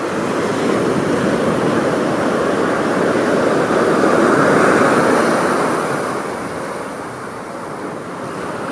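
Ocean surf breaking on the beach and around the rocks, a steady rush that swells to a peak about halfway through and eases off near the end.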